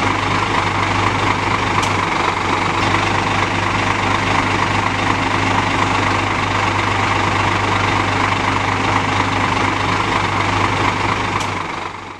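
Scania K410 coach's engine running steadily with a low hum, fading out near the end.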